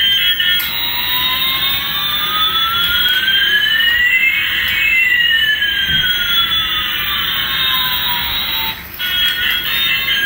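Light-up toy Airbus A380's built-in electronic jet sound effect: a rushing hiss with one whine slowly rising while another slowly falls, crossing halfway, lasting about eight seconds. Short electronic beeping tones come just before it starts and again near the end.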